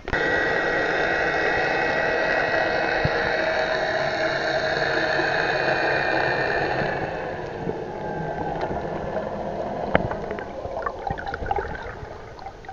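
Underwater sound as the camera goes under: a steady engine hum from nearby motorboats, carried through the water with a water rush, starting suddenly and easing after about seven seconds. Bubbling and clicks follow near the end.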